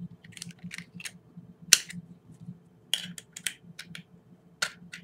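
Irregular small clicks and scrapes of a Glock 23's steel locking block being worked up and out of its polymer frame, with one sharper click nearly two seconds in.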